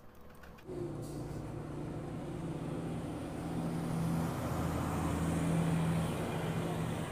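A motor vehicle engine running steadily, with a low hum. It starts abruptly about a second in and grows a little louder.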